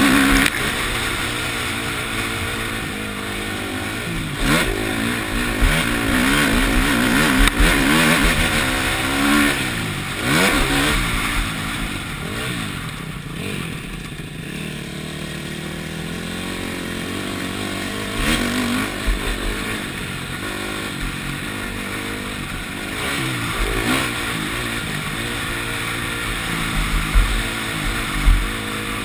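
Single-cylinder four-stroke KTM motocross bike engine revving hard and backing off again and again, its pitch climbing and dropping as the throttle opens and closes. A few sharp knocks near the end.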